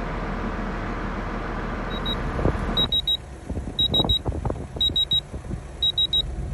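A steady rumbling noise fills the first few seconds and then drops away. From then on an electronic beeper sounds in quick triplets of high beeps about once a second, with a few soft knocks of handling between them.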